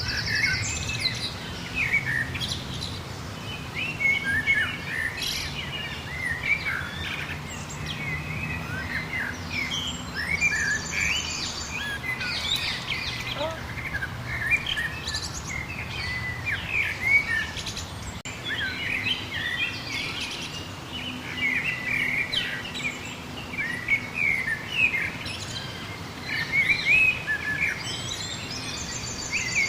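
Several wild birds singing and calling at once, a dense chorus of short chirps and whistled notes, with a brief rapid high trill about eleven seconds in and again near the end. A low steady rumble runs underneath.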